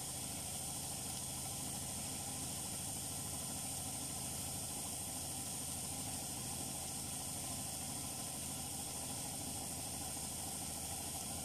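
Steady hiss with a low hum underneath, from pots cooking on a gas stove.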